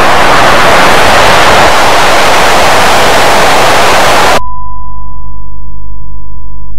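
Loud television static hiss that cuts off suddenly about four seconds in. A steady, high test-pattern tone follows, with a fainter low hum beneath it.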